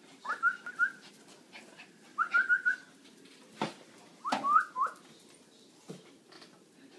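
A person whistling to call a dog: three short bursts of three or four quick, clear notes, each note sliding up to a steady pitch, with a couple of sharp clicks in between.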